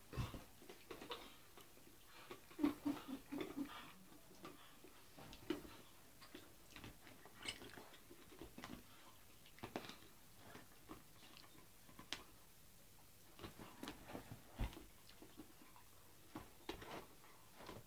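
Dog chewing and gnawing on a toy: faint, irregular clicks and crunches from teeth working the toy, with a quick run of bites a few seconds in.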